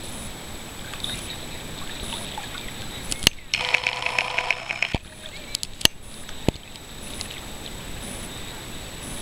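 Sea water lapping and sloshing against a camera held at the surface in small waves, with a few sharp knocks. For about a second and a half near the middle the sound changes, with a few steady tones and quick pulses, as water washes over the camera.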